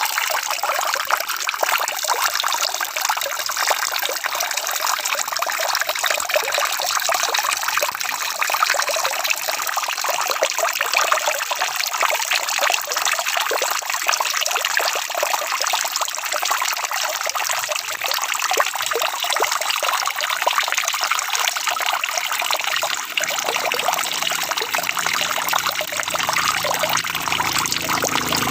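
Steady rain falling: a dense, even patter of drops. A faint low rumble comes in near the end.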